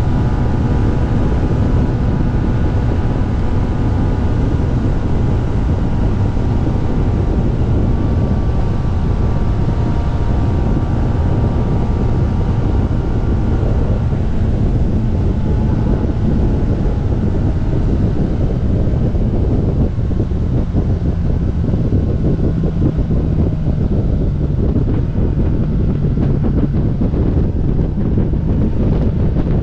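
Kawasaki ZX-10R's inline-four engine running at a steady cruise under heavy wind rush on the microphone. The engine note is steady, and from about halfway it sinks under the wind.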